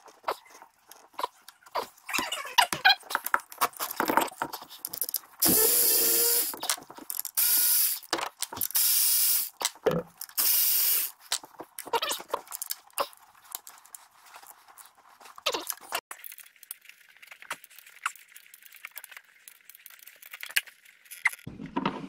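Hand ratchet backing out the 10mm bolts of the coil-pack bracket on a 5.3 L V8's valve cover: scattered clicks and knocks, with four bursts of fast ratcheting, each a little over a second, around the middle.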